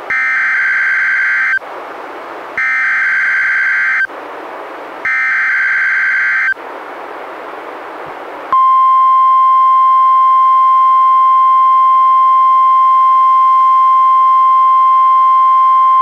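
NOAA Weather Radio EAS activation: three short bursts of buzzy SAME header data tones, each about a second and a half long and a second apart. About eight and a half seconds in, the steady, loud single-pitch 1050 Hz warning alarm tone begins. Together they announce a Special Marine Warning.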